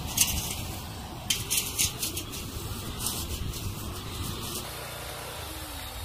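Brush cutter engine running with a nylon-line trimmer head cutting grass, with several brief sharp hissing bursts as the spinning line strikes. About four and a half seconds in the cutting stops and the engine drops back to a lower, quieter run.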